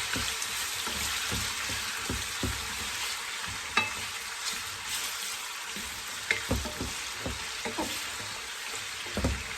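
Pork and garlic sizzling steadily in hot oil in a pot, with a few sharp clicks along the way.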